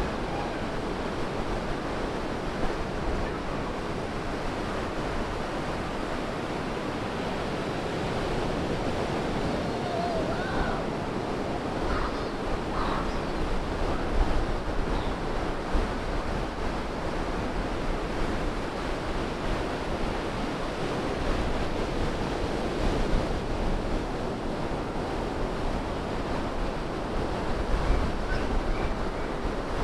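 Ocean surf breaking and washing up the sand among pier pilings, a steady rush of waves, with low gusts of wind buffeting the microphone now and then, most strongly near the end.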